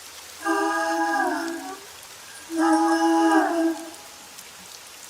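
Steady rain under two held, wordless a cappella vocal notes, each about a second and a half long and bending down at the end.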